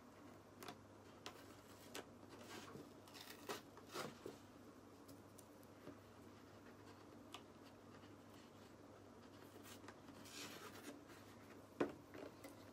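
Near silence: room tone with a steady low hum and a few faint, scattered taps and rustles, with a short soft hiss about ten seconds in.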